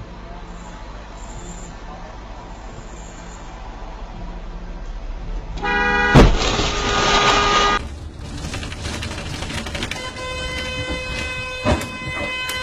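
Low steady traffic hum, then a car horn blares and a sharp bang of a car collision hits about a second later, with the horn and noise continuing for another second or two. Later a second long horn blast sounds, with a short knock near the end.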